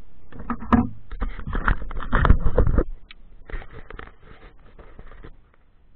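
Handling noise: fingers scraping and rubbing over the camera's microphone, loud and irregular with small knocks for about three seconds, then fainter, stopping about five seconds in.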